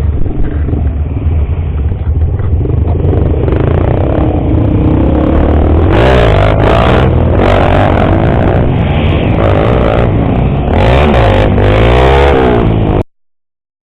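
Motorcycle engines running and revving, their pitch rising and falling repeatedly with overlapping revs, over a steady low rumble. The sound cuts off abruptly near the end.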